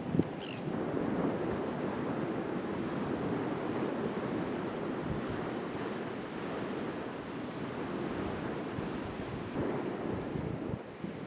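Wind buffeting the microphone over rushing water while riding, a steady rush with a short knock just after the start.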